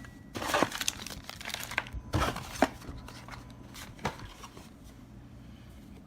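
Product packaging being handled: crinkling and rustling with a few sharp taps, busiest in the first four seconds and fainter near the end.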